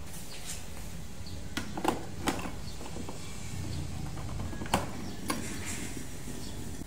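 Sharp plastic clicks and clacks of a Lahome capsule coffee machine being loaded, as the capsule adapter is fitted and the top lid worked: about five separate clicks, three in the first half and two more near the middle. A steady low hum runs underneath.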